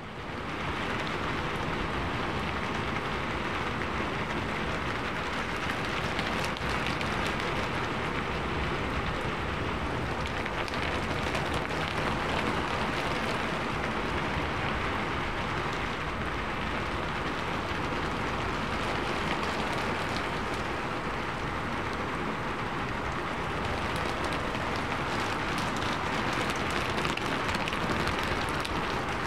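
Heavy monsoon rain falling steadily: a dense, even hiss of many drops, fading in at the very start.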